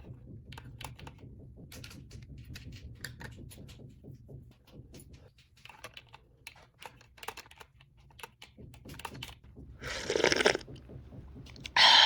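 Small plastic toy pieces being handled: a run of light clicks and taps. A brief pitched sound comes about ten seconds in, and a louder one right at the end.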